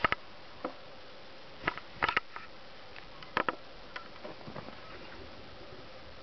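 Day-old kittens nursing on their mother, giving brief squeaks and clicks in small clusters: at the start, about two seconds in and again about three and a half seconds in, with a few fainter ones after.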